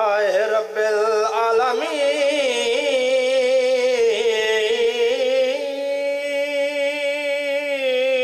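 A man's solo voice chanting in a long, drawn-out melodic style through a microphone, holding wavering notes without a break: the Arabic opening praise (khutba) that begins a Shia majlis recitation.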